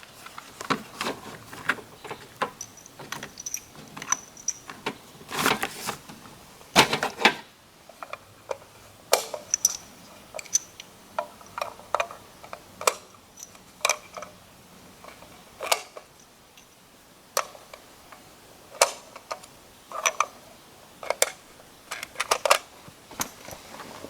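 Irregular small metallic clicks and clinks of .308 cartridges being handled and loaded, one or two a second.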